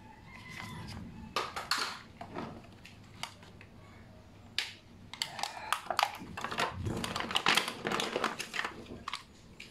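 Clear plastic bag crinkling and rustling as hands handle the toys inside it, in irregular bursts, thickest in the second half.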